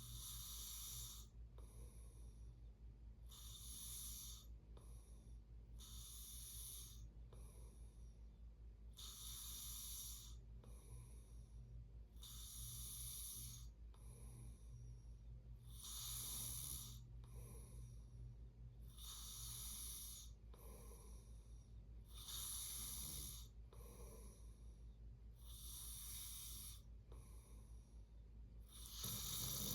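A sleeping person snoring softly, a breathy snore about every three seconds, over a steady low hum.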